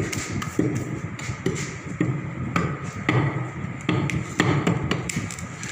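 Hand rammer striking damp moulding sand packed in a moulding box, repeated dull thuds about two a second as the sand is rammed down.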